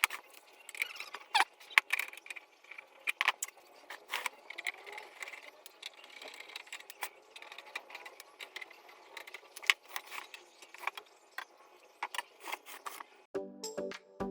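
Irregular clicks, clinks and light rattles of small hard parts, with music starting near the end.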